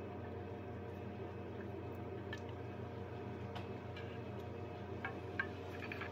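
Faint clicks and taps of a spatula scraping thick aioli out of a stainless steel blender jar, with one sharper knock near the end, over a steady low hum.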